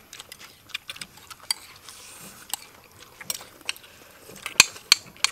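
Metal spoons clinking and scraping against plates and a metal serving tray during eating, in scattered sharp clicks, the loudest a few near the end, with some chewing between them.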